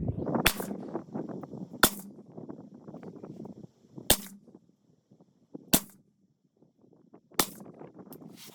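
Five suppressed 5.56 rifle shots, fired one at a time about one and a half to two seconds apart, from a 12.5-inch short-barrelled AR fitted with a SureFire RC2 suppressor, shooting 77-grain IMI rounds for a group.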